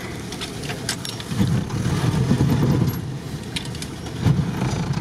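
UAZ off-roader's engine running, heard from inside the cab, swelling louder about a second and a half in and easing off again near three seconds, with scattered clicks and rattles.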